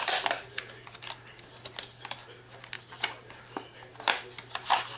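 Clear plastic lure packaging being handled and opened by hand: irregular crinkling crackles and clicks.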